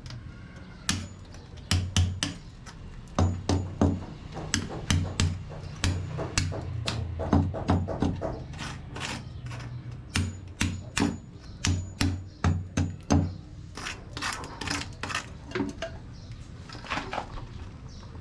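Repeated hammer blows, irregular at roughly one to three a second, with a few quick doubles; the blows thin out and soften near the end.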